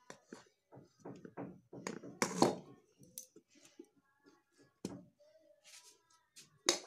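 Steel spatula scraping and knocking against a metal kadhai as a thick, sticky jaggery mixture is scraped out into a steel plate: a run of scrapes and clinks, loudest about two seconds in and again near the end.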